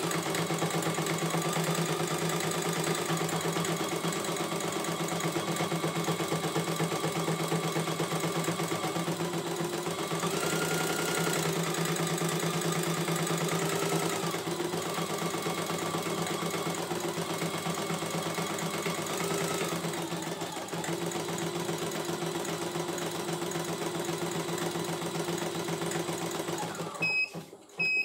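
CNY E900 computerized embroidery machine stitching steadily. Near the end it stops and gives two short electronic beeps.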